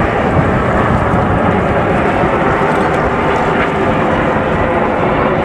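Ten Aermacchi MB-339 PAN jet trainers, each with a single Rolls-Royce Viper turbojet, flying overhead in close formation. Their engines make a steady, even rushing rumble that neither rises nor falls.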